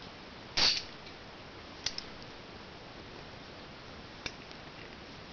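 Three sharp clicks or knocks over a faint steady hiss, the first the loudest about half a second in, the other two fainter near two and four seconds.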